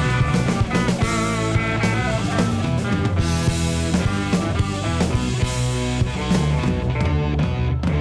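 Instrumental rock music with electric guitar and a drum kit keeping a steady beat.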